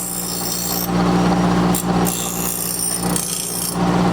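Hart 6-inch bench grinder running with a steady motor hum while a steel lawn mower blade is pressed against the grinding wheel in passes. The high grinding hiss sounds for the first second or so, briefly near the middle, then again for most of the last two seconds, easing off between passes.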